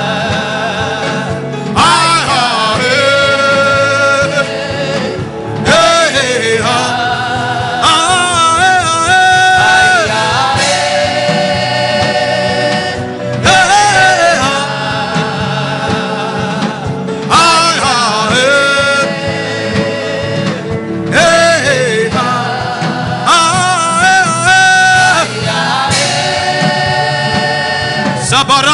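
Gospel worship singing over backing music. A chant-like sung phrase with long held notes starts over about every four seconds.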